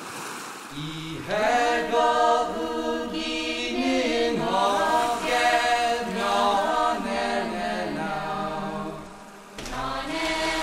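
A choir of voices chanting as background music, holding long notes that slide between pitches; it dips briefly near the end and then comes back in.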